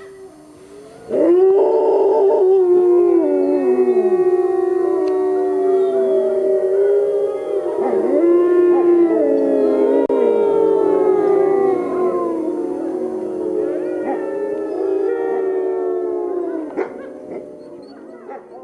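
A group of wolves howling together in chorus: several long, overlapping howls that slide up and down in pitch. They start abruptly about a second in and fade out near the end.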